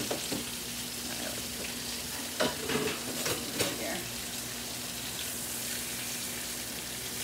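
Lightly floured chicken breast cutlets sizzling steadily in olive oil and butter in a frying pan, with a few short knocks about two and a half to four seconds in.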